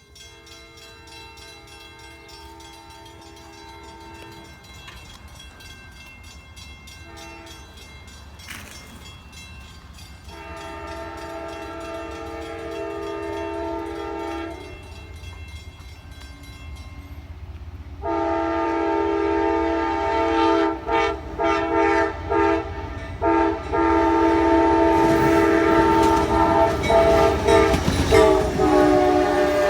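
Amtrak locomotive 74's multi-chime air horn sounding a long series of blasts as the train approaches, growing louder. First comes a long blast, then a short toot and another long blast. Then a loud sequence broken by several quick short toots, and the chord drops in pitch as the locomotive passes, with the train's rumble and clatter on the rails.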